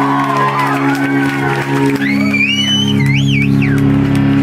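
Amplified electric guitar and bass holding a steady low drone between songs, a deeper bass note joining about three seconds in. Crowd whoops and shouts over it about halfway through.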